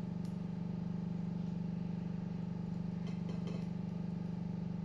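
A steady low hum, with a few faint light clicks about three seconds in from a lock pick and tension wrench working in the keyway of a disc lock.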